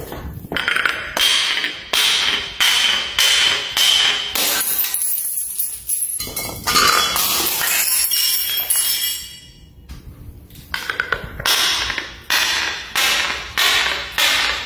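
Glass jars tumbling down marble stairs, clunking on each step about every half-second with a thin glassy ring. Midway one hits hard with a loud crash of glass breaking that dies away over a few seconds. Then another jar clunks down step by step.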